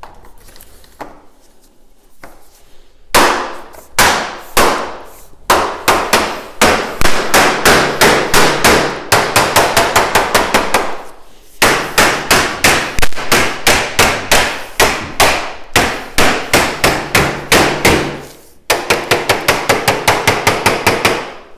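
Repeated hammer blows knocking a patio door's interlock strip back onto the panel. The strikes start about three seconds in, come two or three a second with brief pauses twice, and quicken near the end.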